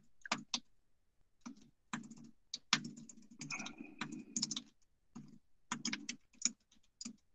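Typing on a computer keyboard: a run of irregular keystrokes and clicks with short pauses between them.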